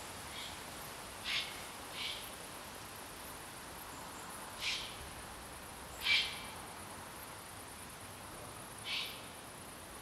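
Eurasian eagle owl giving about six short rasping calls at irregular intervals, the loudest about six seconds in.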